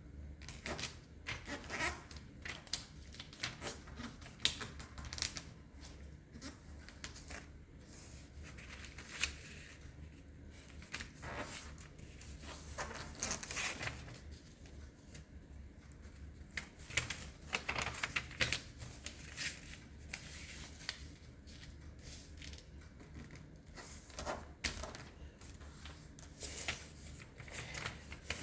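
A sheet of origami paper being folded and creased by hand: irregular crisp rustles and short scrapes as the folds are made and pressed down, over a steady low hum.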